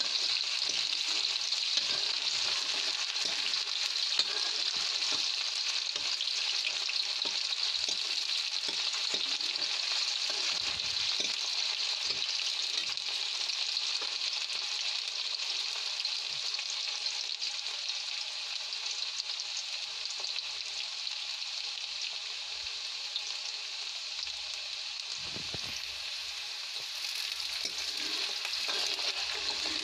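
Sliced onions sizzling steadily in hot oil in a kadhai, with a steel ladle knocking and scraping against the pan as they are stirred. The onions are being fried until light golden.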